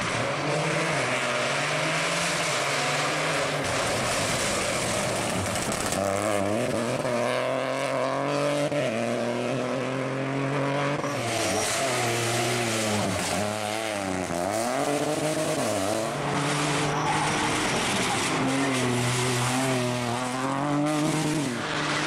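Peugeot 208 rally car engine pulling hard through the gears: its pitch climbs and drops sharply at each shift several times over, with lower, quieter running as it slows for a chicane near the start.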